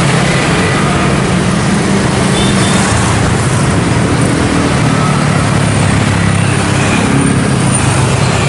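Busy road traffic: cars and small motorcycles and scooters passing close by in a steady, dense mix of engine hum and tyre noise.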